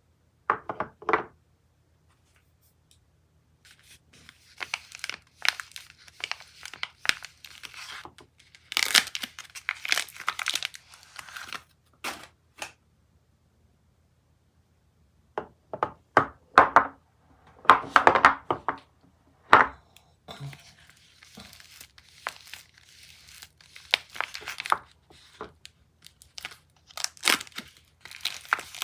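Soap wrappers being torn open and crumpled by hand: bursts of tearing and crinkling, with two short pauses.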